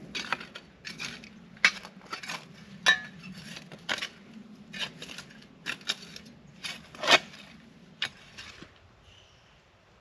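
A small metal shovel digging into a stone fire ring, its blade scraping through ash, charcoal and grit in about a dozen irregular strokes that stop about eight seconds in.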